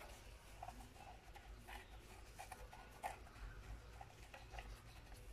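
Very faint rustling and scattered soft taps of plastic-gloved hands pressing and smoothing semolina dough into a pan.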